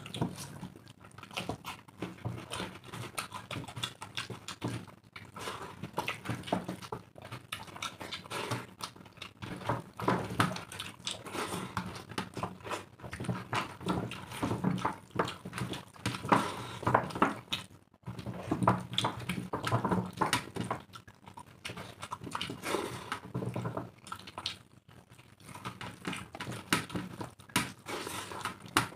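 Two people eating rice and egg curry with their hands: rice squished and mixed into curry on steel plates, with chewing and lip-smacking, as many short, irregular wet sounds.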